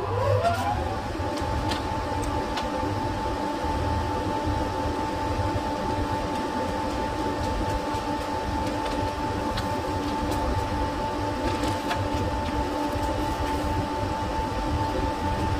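Electric drill spinning up with a rising whine in the first second, then running at a steady pitch as it bores out a broken steel exhaust-manifold bolt with a 5.5 mm bit.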